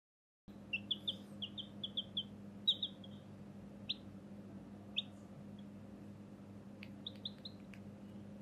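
Baby chick peeping: a quick run of about ten short, high peeps, then two single peeps and three more near the end. A steady low hum lies under it from about half a second in.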